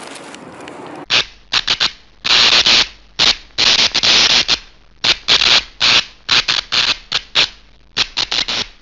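About a second of street and wind noise, then a sudden cut to an irregular run of loud, hissy static bursts that start and stop sharply over a low steady hum: an old-film static sound effect added under the closing title card.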